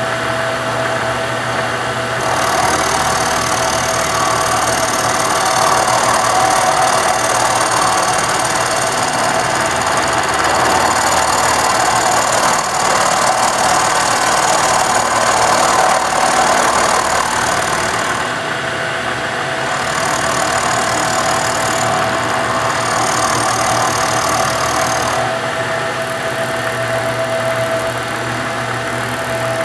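Milling machine running with an end mill cutting into a laminated wood banjo neck heel: a steady whine from the machine under a rough, hissing cutting noise. The cutting noise swells a couple of seconds in and drops away twice in the later part, leaving the steady whine.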